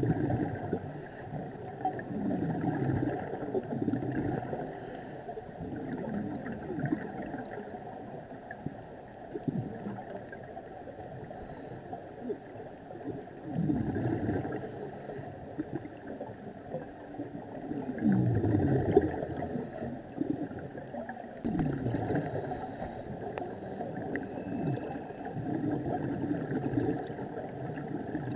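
Underwater scuba bubble sound: a diver's exhaled regulator bubbles gurgling in bursts every few seconds, over a steady low rush of water.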